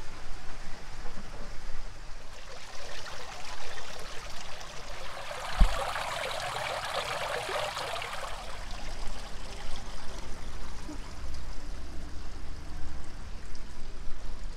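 Water falling off a rock ledge and splashing onto stones below, a steady trickling rush that swells louder for a few seconds in the middle. One low thump about five and a half seconds in.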